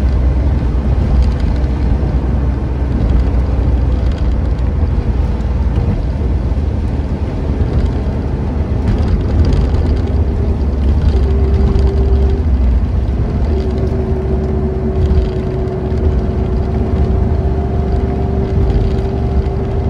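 Subaru Impreza 2.5RS with its 2.5-litre flat-four cruising at a steady speed: a constant low engine and road-noise drone. A thin steady hum stands out from about halfway through.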